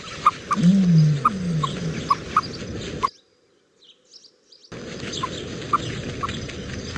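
An animal's low, deep calls, two in a row about a second in, over a steady hiss with short high chirps; the sound cuts off about three seconds in and, after a short silence, the hiss and chirps return.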